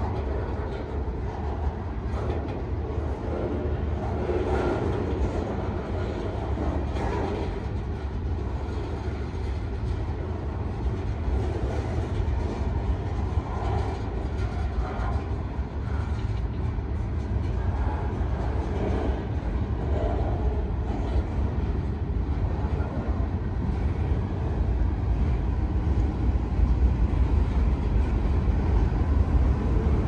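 Freight train cars rolling past, their steel wheels rumbling on the rails with scattered clicks, in a steady low rumble that grows somewhat louder near the end.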